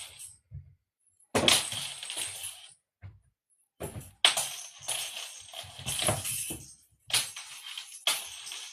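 A cat's toy being batted and shaken, making several irregular bursts of rattling and clinking with short silent gaps between them.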